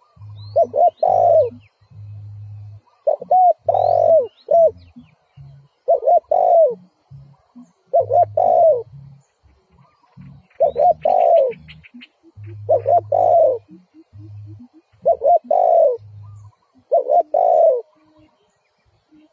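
Spotted dove cooing, a decoy bird calling to lure wild doves. There are about eight phrases of coos, roughly one every two seconds, with softer low notes between them.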